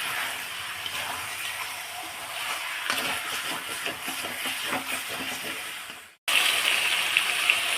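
Chicken pieces sizzling in hot oil in a kadai, frying off the water they release. The sound cuts out briefly about six seconds in and comes back as louder sizzling.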